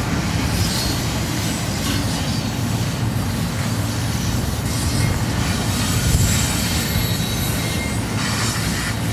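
Double-stack intermodal well cars of a BNSF freight train rolling by: a steady low rumble of steel wheels on rail, with patches of high wheel squeal coming and going.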